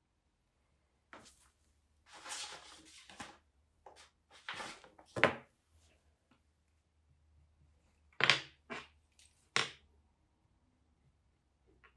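Pencils being handled while drawing: a stretch of scratchy pencil strokes on paper and a series of sharp clicks and knocks as a wooden graphite pencil is put down and a mechanical pencil taken up. The sharpest knocks come about five and eight seconds in.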